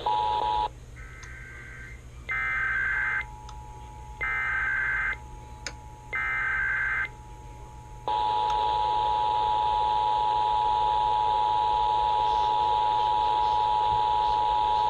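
Emergency Alert System national test alert as broadcast. First come three roughly one-second bursts of SAME digital header data, about two seconds apart. Then, about eight seconds in, the EAS two-tone attention signal (853 and 960 Hz sounded together) begins and holds steady to the end.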